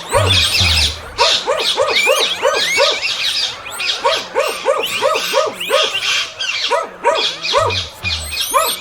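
Dogs barking in a rapid series of short calls, with high bird chirps over them: a dense mix of pet sounds.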